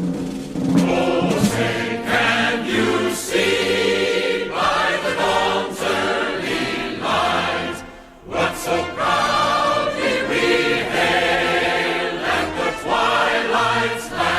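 Music with a choir singing long held notes; it dips briefly about eight seconds in, then carries on.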